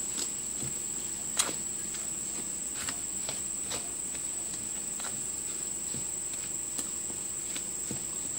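A spatula stirring dry flour mix in a stainless steel bowl, giving light, irregular clicks and taps against the metal, the loudest about a second and a half in. A steady high-pitched whine runs underneath.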